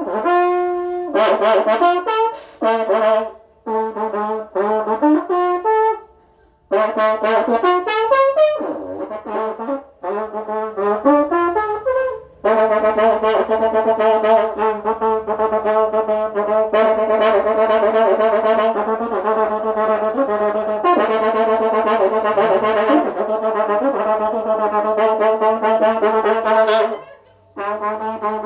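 Karnay, the long Central Asian brass trumpet, blown in short blasts with gaps and notes bending in pitch, then held in one long continuous sounding from about 12 seconds in. It breaks off briefly near the end and starts again.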